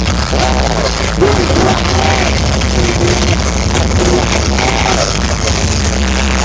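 Loud electronic dance music with heavy, booming bass played through a large parade sound-system rig, a gliding melody riding over the bass.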